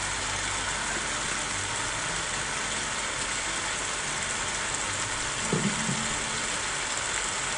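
Aubergine pieces frying in a saucepan, a steady sizzle.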